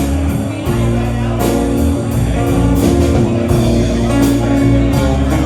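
A band playing an instrumental passage with no singing: a guitar line over bass and steady drums.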